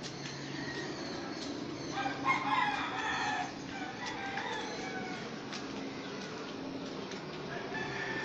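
A rooster crows once, about two seconds in, for about a second and a half. Underneath runs a steady low hum with scattered light clicks.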